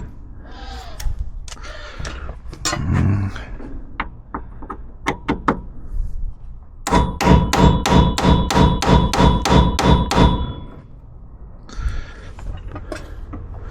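Scattered clicks and knocks of tool handling, then a fast run of about a dozen hammer blows on metal, roughly four a second, with a ringing metallic tone, striking at stuck dash fasteners to break them loose after heating them with a torch.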